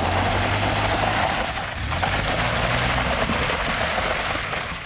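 Jeep Liberty in two-wheel drive sliding around on loose gravel, its engine revving while its spinning tyres throw gravel and dirt. The noise starts suddenly, dips briefly about two seconds in, then carries on.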